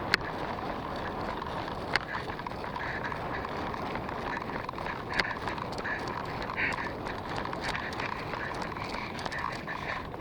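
Steady rustling and handling noise on a helmet-mounted phone camera as the player moves, with three sharp clicks or knocks: one right at the start, one about two seconds in and one about five seconds in.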